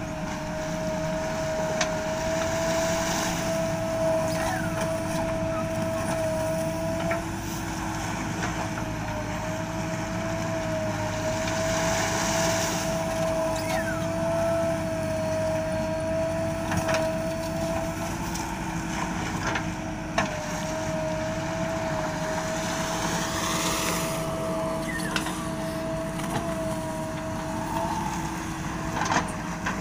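JCB backhoe loader's diesel engine running under work, with a steady whine held throughout and a few sharp knocks from the digging.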